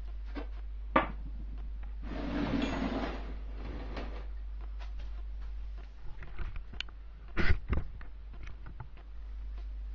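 Scattered knocks and clatter of metal engine parts being handled on a wooden workbench, with a short rustling handling noise about two seconds in and two sharper knocks about seven and a half seconds in, over a steady low hum.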